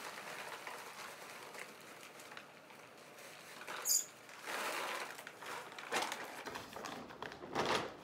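Dry bird pellets pouring from a large feed bag into a plastic storage container, a steady rattling patter with the bag rustling. Near the end the emptied bag is lifted and shaken with a louder rustle, and a short high squeak comes about four seconds in.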